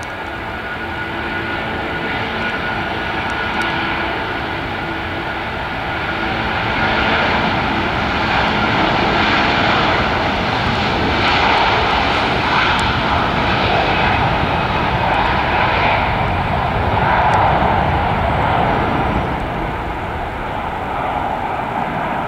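Airbus A330-200 airliner's twin jet engines at take-off thrust as it accelerates down the runway. The rushing engine noise builds over the first several seconds, stays at its loudest through the middle, and eases slightly near the end. Some steady whining tones are heard in the first few seconds.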